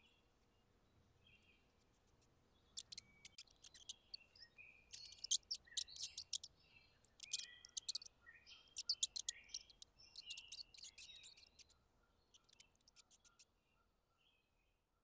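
Mouse squeaking: short, high-pitched chirps mixed with quick trains of sharp clicks, in bursts through the middle, thinning out near the end.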